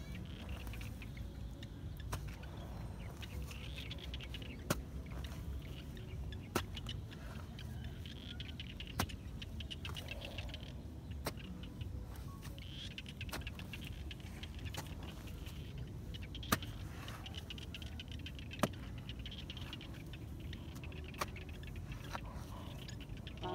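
Hoe blade chopping into damp earth, a sharp thud about every two seconds over a steady low rumble.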